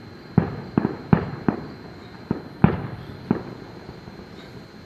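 Fireworks shells bursting: about seven sharp booms in the first three and a half seconds, each trailing off, then a lull.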